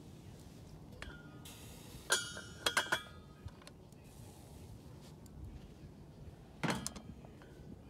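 A metal cooking pot and its glass lid clinking against each other. A faint ringing click comes about a second in, then a sharp ringing clink just after two seconds and three quicker clinks. A duller knock follows near the seven-second mark.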